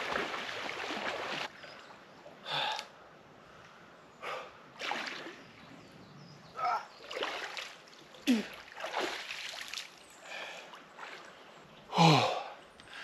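Water splashing from a swimmer in a cold lake, then a man's short, sharp gasps and sighing breaths that fall in pitch, from the cold water as he wades out. The loudest comes near the end.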